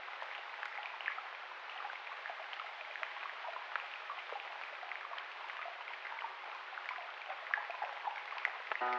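Steady hiss sprinkled with many small, irregular ticks, like rain pattering.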